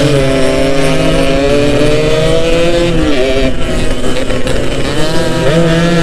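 Yamaha RX-King two-stroke single-cylinder motorcycle engine running under way, heard from the bike itself. The engine pitch eases off about halfway through and again near the end, then climbs back as the throttle opens.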